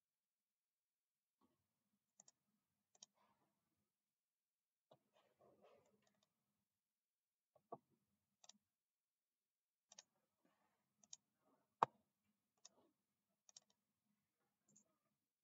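Computer mouse clicking, single and double clicks at irregular intervals over near silence, the sharpest click a few seconds before the end.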